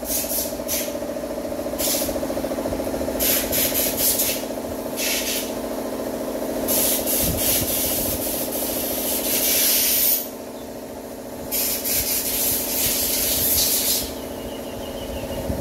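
A machine's engine running steadily, with repeated bursts of hissing, scraping noise over it, some brief and some lasting a few seconds.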